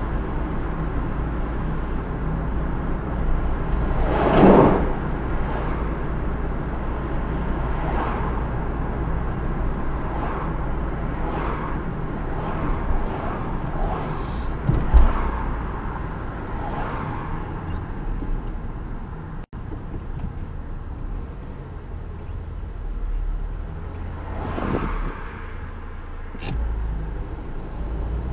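Steady road and engine noise of a car being driven, with several other vehicles swooshing past, the loudest about four seconds in and another near the end.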